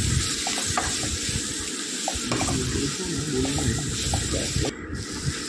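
Sliced onions and spices frying in mustard oil in a kadhai, with a steady sizzle, while a steel ladle stirs them, scraping and clicking against the pan many times.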